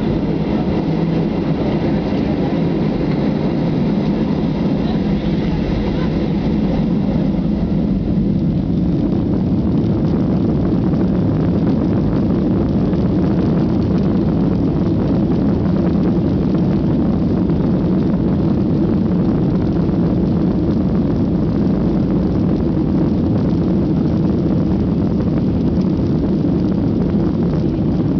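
Cabin noise of a Boeing 737-800 taxiing on the ground, its CFM56 jet engines running at low steady thrust as a constant low drone. A faint high whine fades out about eight seconds in.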